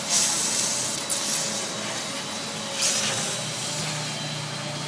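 Short hisses of air, near the start and again about three seconds in, over a steady mechanical hum, with a single click about a second in.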